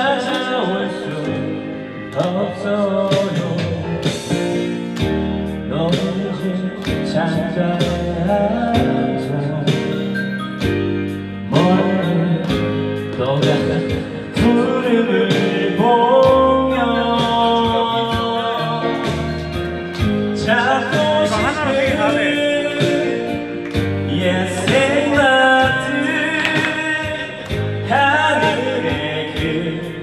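A man singing karaoke into a handheld microphone over a backing track with a steady beat.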